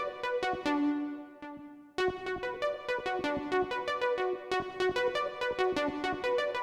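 Roland XP-10 synthesizer playing one of its factory preset sounds. It plays a fast run of short, sharply struck pitched notes, breaks off briefly after about a second and a half, and starts again about two seconds in.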